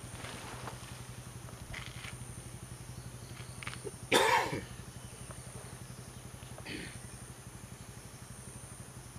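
A single short, loud elephant call about four seconds in, falling in pitch, with a few fainter short calls around it. A steady low hum runs underneath.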